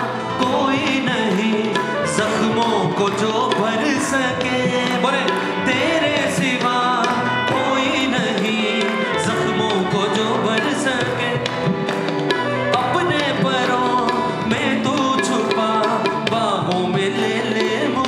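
Live band playing an instrumental interlude of a Hindi-Urdu worship song: a wavering melodic lead over steady drum percussion.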